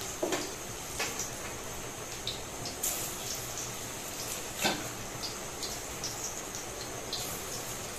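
Jackfruit chops deep-frying in hot mustard oil in a kadai: a steady sizzle with scattered crackles and pops, the sharpest pop about halfway through.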